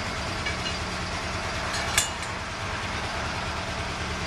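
Pickup truck engine idling steadily, with a single sharp click about two seconds in.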